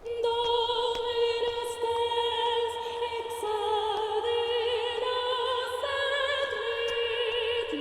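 Soundtrack music: operatic, choir-like singing in long held notes with slight vibrato, several voices layered. It comes in suddenly at the start.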